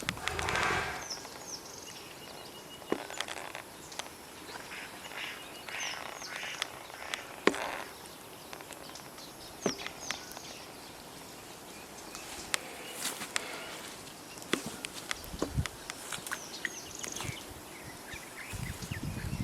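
Forest ambience: a bird giving short high descending chirps every few seconds, with scattered sharp clicks and brief bursts of rustling.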